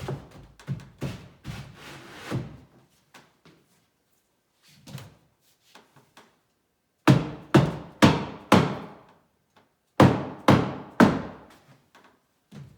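Knocks on a wooden cabinet panel, driving a glued cabinet floor down tight into its groove in the front frame. A run of lighter knocks comes first, then two groups of heavy thunks, four and then three, about seven and ten seconds in.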